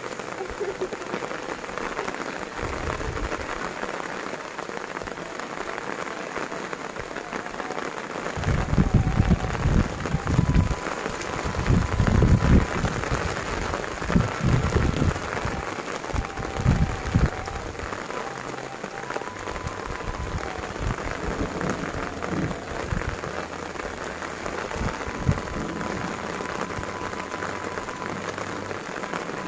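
Steady rain falling, with a stretch of loud, irregular low rumbling for several seconds in the middle.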